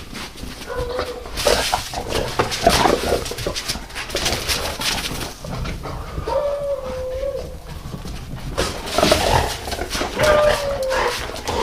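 A dog whining three times in short, slightly falling calls, each about a second long, amid scuffling and movement in snow.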